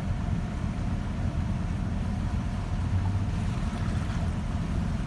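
Vehicle driving through floodwater: a steady low rumble with a fainter wash of water noise.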